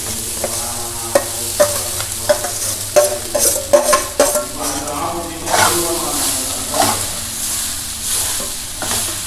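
A metal spoon stirring and scraping damp flattened rice (aval) in a metal kadai over the heat, with repeated clinks and scrapes against the pan and sizzling from the hot oil and onions underneath.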